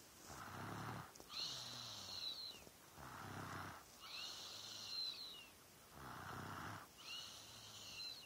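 Slow, regular snoring, about one breath every three seconds, three times over. Each breath is a low rattling snore followed by a high thin whistling sound.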